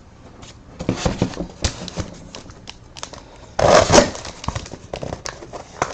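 Hands opening sealed trading card boxes: packaging crinkling and cardboard clicking and scraping, with a loud tearing burst about three and a half seconds in.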